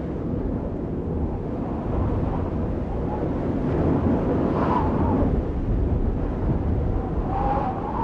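Deep, steady rumbling noise of an end-card sound effect, with faint brief tones about five seconds in and again near the end.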